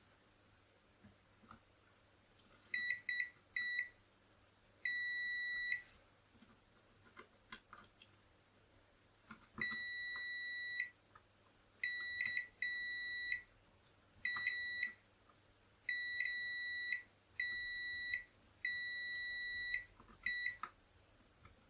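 An electronic test meter's beeper sounds one steady high tone in irregular beeps as probe tips touch points on the circuit board. It starts with a few quick blips, then gives about a dozen beeps of half a second to a second each, with faint clicks in between.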